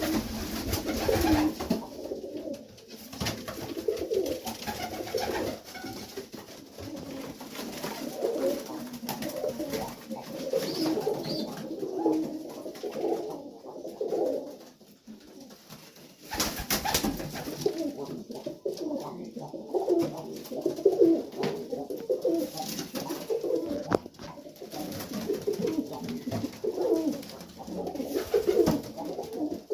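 Several pigeons cooing continuously in a loft, overlapping low warbling coos with small pauses.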